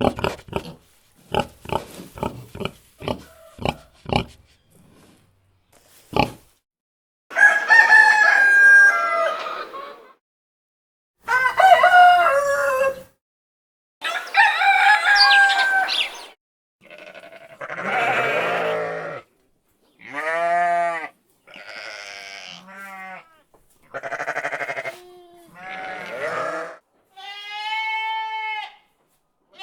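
A string of farm animal calls. First comes a run of short, sharp calls. Then a rooster crows three times, each crow raspy and about two seconds long. The rest is a series of wavering goat bleats.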